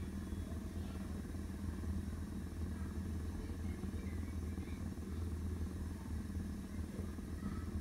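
A pot of kheer (milk, rice and khoya) simmering on the stove, heard as a steady low hum.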